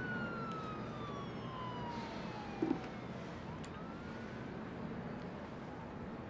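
A siren wailing in the distance, its pitch sliding slowly down and then rising again, over a steady hum of city traffic. There is a brief low knock about two and a half seconds in.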